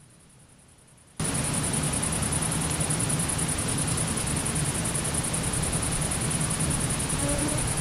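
Night ambience of chirring grasshoppers over camera microphone hiss: faint at first, then about a second in it jumps suddenly to a loud, steady hiss with the high chirring running through it. Near the end a brief faint low tone sounds under the hiss.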